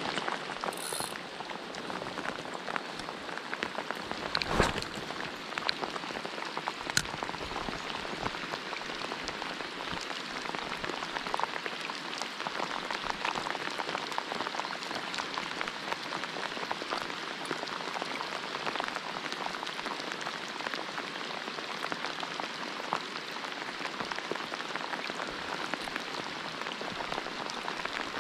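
Steady heavy rain falling, with many individual drops ticking close by. One sharper knock about four and a half seconds in.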